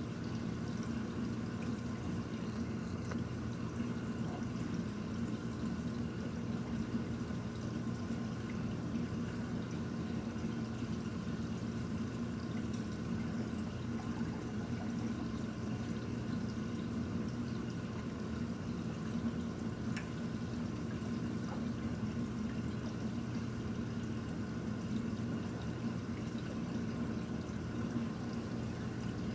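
Reef aquarium water circulating: steady trickling and pouring of water over a constant pump hum.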